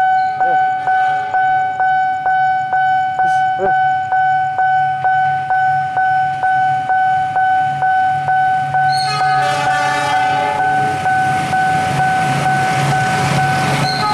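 Level-crossing warning bell ringing steadily, about three strokes a second. About nine seconds in, the approaching diesel locomotive sounds its horn for a couple of seconds, and the rumble of the oncoming train then grows louder toward the end.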